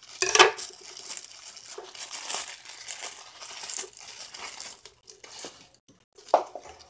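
Clear plastic wrap crinkling and tearing as it is cut and pulled off a head of cauliflower, in irregular rustles that are loudest just after the start, with another short crackle near the end.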